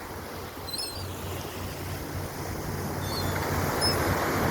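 Steady outdoor wind and surf noise with a low hum underneath, growing louder toward the end, and a few faint, short, high-pitched calls from the seagulls being fed.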